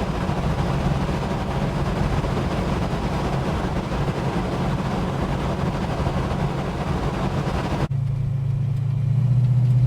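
Holden HK sedan under way: a steady engine drone under road and wind hiss. About eight seconds in, the sound cuts abruptly to a louder, smoother engine hum with the hiss gone.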